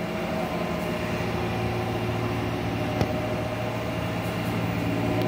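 A steady mechanical hum of a running fan motor, with one short click about three seconds in.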